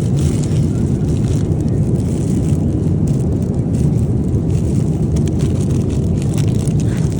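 Steady, loud low rumble of a moving vehicle, even throughout with no distinct events.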